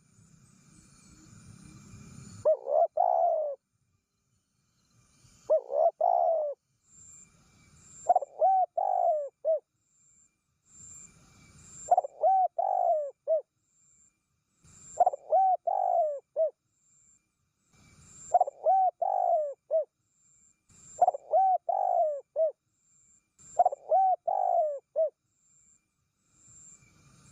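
Spotted dove cooing its lure call, a phrase of three or four rolling coos repeated about every three seconds. Faint hiss rises between phrases.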